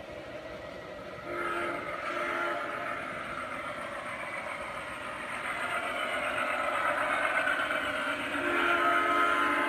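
Model diesel locomotive in Soo Line colours running on a garden railroad, sounding its horn: a blast about a second in and a shorter one just after, then another longer blast near the end. Under it, the running noise of the train grows louder as it approaches.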